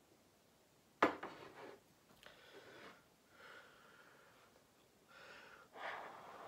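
A sharp knock about a second in, then a man drinking from a mug: several sips and slurps with heavy breaths between them.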